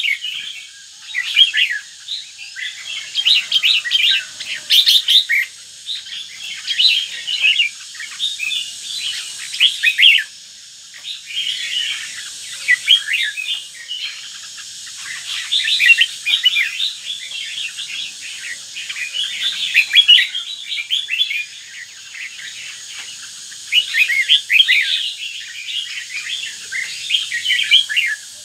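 Red-whiskered bulbul of the northern type singing: quick runs of bright, high notes in bursts a second or two long, with short pauses between them.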